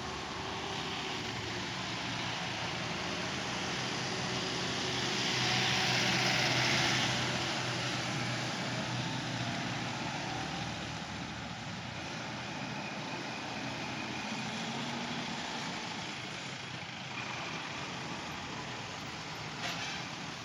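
Road traffic rounding a hairpin bend: lorry, car and motorcycle engines running steadily. A vehicle passes close and loudest about six seconds in, and there is a short click near the end.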